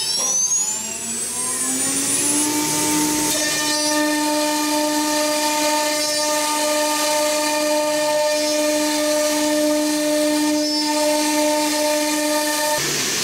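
Twin spindles of a double-head CNC router with a rising whine that levels off about two seconds in, then a steady high whine over the hiss of the bits cutting a pattern into board. The whine cuts off suddenly near the end.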